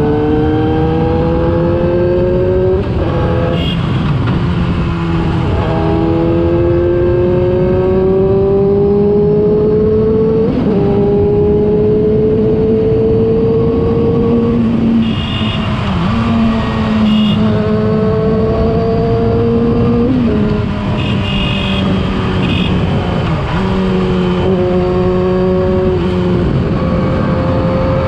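Yamaha R6 inline-four engine through a LeoVince aftermarket exhaust, pulling hard under acceleration. Its note climbs steadily, then drops suddenly at each upshift, over and over every few seconds, with wind and road noise underneath.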